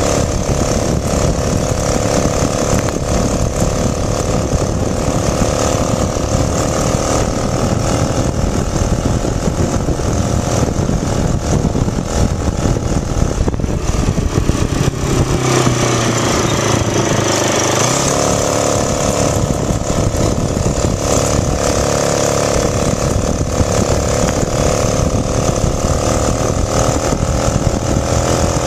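Loud, steady engine-like drone over a low rumble, heard from a moving bicycle; its pitch shifts briefly about halfway through.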